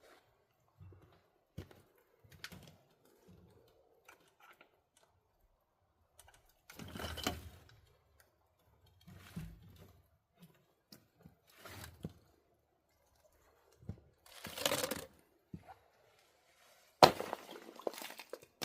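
Ice in a rubber water bowl being broken up, a series of cracks and crunchy thunks several seconds apart, the sharpest near the end.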